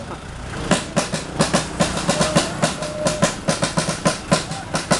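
Drumming: rapid, even beats, about six or seven hits a second, with a few short held tones between them.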